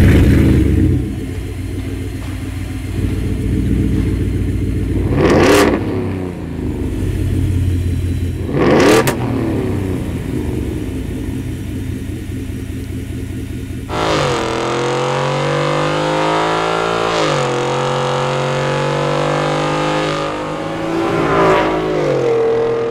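A Ford F-150's 5.0L Coyote V8 exhaust idling with a deep rumble and revved sharply twice, about five and nine seconds in. About two-thirds of the way through, the sound switches suddenly to a steadier, higher engine note whose pitch rises and dips, with one more short rev near the end.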